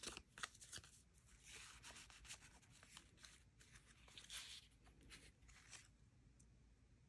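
Faint rustling and rubbing of paper as a small envelope is slid into a paper pocket and journal pages and an old photograph are handled, in a few soft spells.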